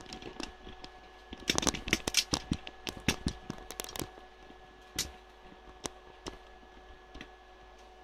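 Irregular clicks and clattering knocks of small objects being handled and moved about, thick for a couple of seconds and then sparse, over a faint steady whine.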